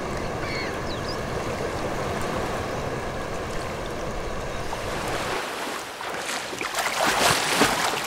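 Sea water washing and lapping steadily. From about six seconds in, a louder rushing splash of churning water breaks the surface.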